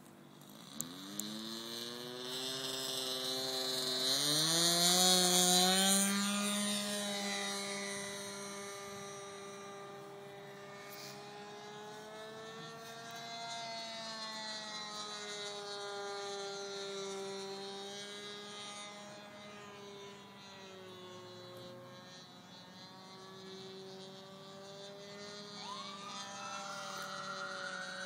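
Great Planes Revolver RC airplane's motor and propeller throttling up for takeoff, rising in pitch over the first few seconds and loudest about five seconds in. It then settles into a steady drone that wavers up and down in pitch as the plane climbs away.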